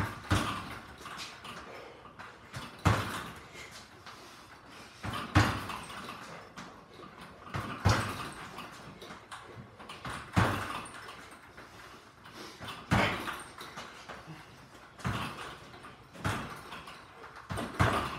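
Gloved punches hitting a leather double-end bag in a series of sharp knocks. A loud hit lands about every two and a half seconds, with lighter quick taps between as the ball rebounds on its cords.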